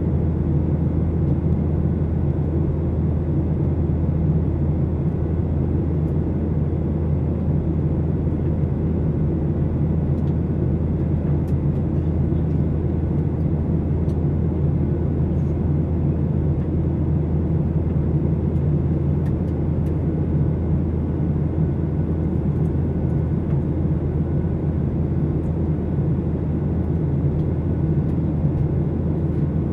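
Cabin noise of a Boeing 737-800 in flight, heard at a window seat over the wing: its CFM56 turbofan engines and the airflow past the fuselage make a steady, even noise that sits low, with a low hum underneath.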